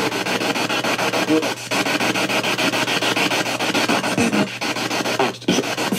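Spirit box radio sweeping through stations: a steady hiss of static chopped into rapid ticks, with a few short gaps and brief snatches of radio voice or music.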